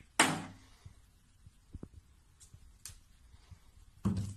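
Plastic toiletry bottles knocked off and over by a cat: one lands with a loud knock just after the start, a few faint taps follow, and a second knock comes about four seconds in as another bottle tips over.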